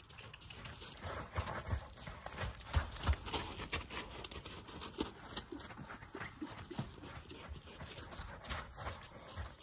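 A horse's hooves thudding on soft dirt as it trots and canters in a circle on a lunge line, in an irregular run of dull beats.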